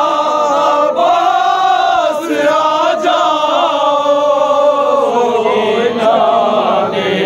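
An unaccompanied nauha, a Shia Muharram lament, chanted by a group of voices in long, slowly wavering held notes.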